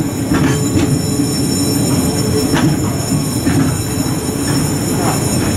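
JR East E6 series Shinkansen cars rolling past on the rails: a steady rumble of wheels on track, broken by a few sharp clicks and knocks from the wheels, bogies and rail joints.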